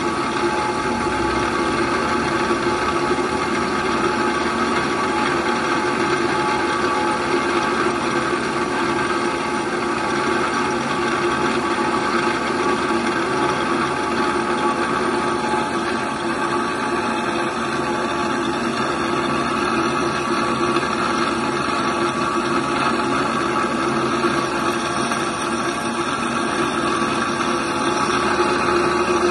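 Grinding wheel grinding the hard-faced flight of an oil expeller worm under coolant spray: a steady grinding hiss with several held tones from the running machine.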